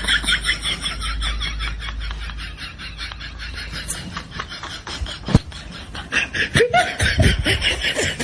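High-pitched laughter: a long run of quick, rapid-fire giggles, growing louder and choppier in the last few seconds.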